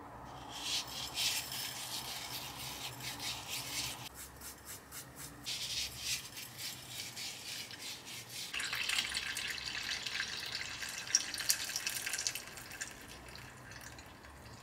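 Lemons being scrubbed by hand with coarse Himalayan salt: a gritty, wet rubbing in bouts, heavier from about the middle until a couple of seconds before the end.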